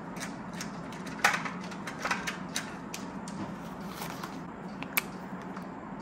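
Plastic polymer banknotes being handled, crinkling and snapping in irregular crackles and sharp clicks, over a steady low hum.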